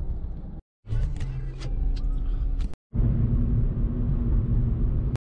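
Car engine and road noise heard from inside the cabin while driving: a steady low rumble with an engine hum. Twice it cuts off abruptly for a moment and comes back.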